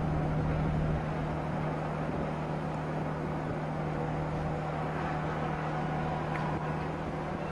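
Steady low drone of the Color Line Superspeed 2 ferry's engines as the ship passes close by, over a broad rush of wind and water.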